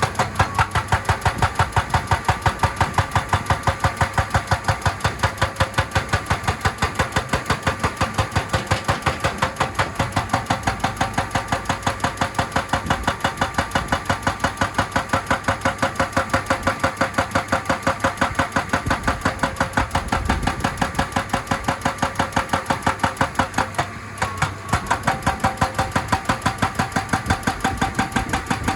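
Excavator-mounted hydraulic rock breaker hammering on rock in a fast, steady rhythm of several blows a second, with a ringing metallic tone. It stops for a moment near the end and then starts hammering again.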